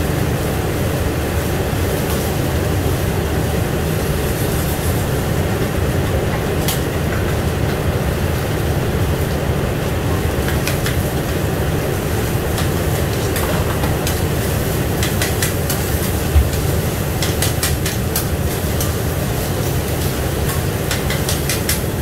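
Steel spatula and scraper clicking and scraping on a teppanyaki griddle as egg fried rice is chopped and turned, over a steady low rumble. The clicks are scattered at first and come in a quick run in the last several seconds.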